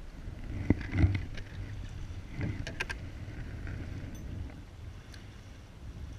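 Wind rumbling on the microphone, with a few knocks and clicks of handling in an inflatable raft; the loudest knocks come about a second in, and a quick run of clicks follows near the three-second mark.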